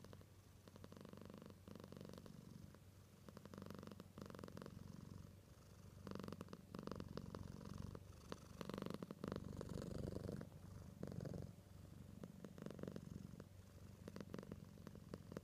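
Domestic cat purring close to the microphone, a fast pulsing purr that swells and fades with each breath in and out, louder for a few seconds in the middle.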